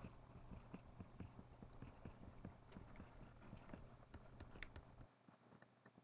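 Near silence with faint, irregular ticks of a stylus pen tapping and stroking on a Tablet PC screen as words are handwritten.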